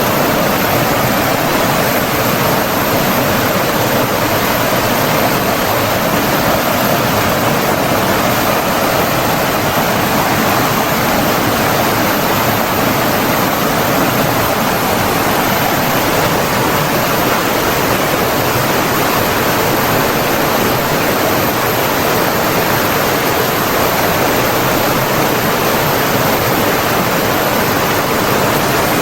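Running water of a stream or small waterfall, an even, unbroken rush of flowing water.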